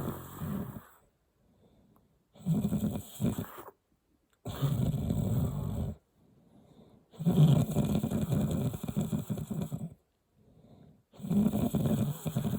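A sleeping person snoring loudly in a pig-like way, one rattling snore on each breath with short quiet gaps between. A snore fades out in the first second, and new ones start about two, four and a half, seven and eleven seconds in. The one at seven seconds is the longest and loudest.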